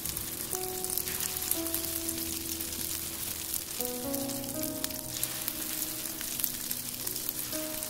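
Egg-battered king oyster mushroom slices (saesongi beoseot jeon) sizzling and crackling in hot oil in a frying pan, with soft background music notes underneath.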